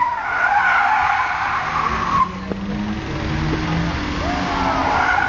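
Car tyres squealing as a car drifts, with its engine running underneath. The squeal stops abruptly about two seconds in, leaving the engine, and starts again near the end.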